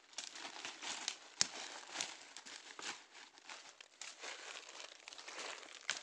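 Footsteps and brushing through dry leaf litter and bamboo undergrowth: irregular crunching and rustling of dry leaves, with a couple of sharper cracks about a second and a half and two seconds in, the first the loudest.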